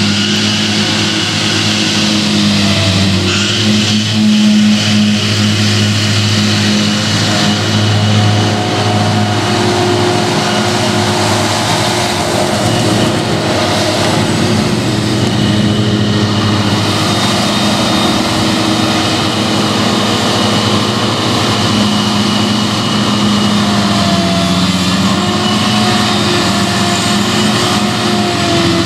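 Claas Jaguar 970 self-propelled forage harvester running at working revs while chopping rye, its engine and chopping drum giving a steady drone, together with the John Deere 6215R tractor hauling the silage trailer alongside. The pitch dips slightly late on.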